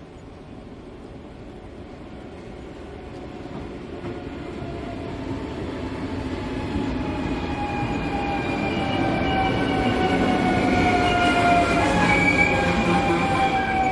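A train braking: a rumble of wheels on rail grows louder throughout, and from about five seconds in the brakes squeal in several high tones at once that slowly fall in pitch as the train slows.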